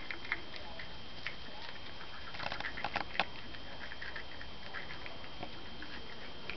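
Skunks eating, with scattered small clicks and crunches of chewing. A denser run of louder crackling crunches comes around the middle.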